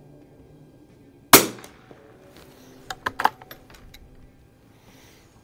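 A single shot from an H&R M12 .22 rimfire target rifle about a second and a half in, sharp and loud with a short echo. About a second and a half later come a few quick metallic clicks of the rifle's single-shot action being worked.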